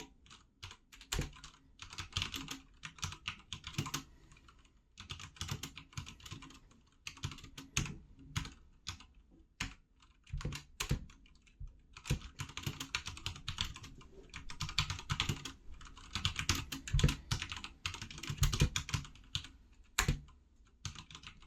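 Typing on a HyperX Alloy FPS Pro TKL mechanical keyboard with linear Cherry MX Red switches: quick runs of keystrokes in bursts with short pauses between, and a few heavier strokes about three-quarters of the way through.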